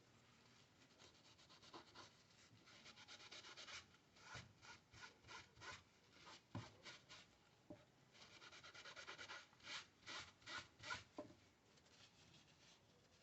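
Faint rubbing strokes of a cloth wiping leftover thermal paste off server hardware, in two runs of quick back-and-forth strokes, about two to three a second, with a couple of light knocks.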